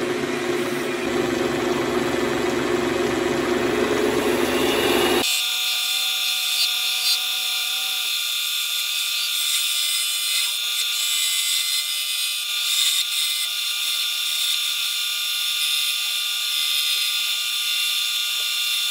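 Wood lathe spinning an ash spindle blank: a steady motor hum at first, then a bowl gouge cutting the spinning wood with a steady hissing shear. About five seconds in, the low end drops out suddenly and only a thin, high hiss remains.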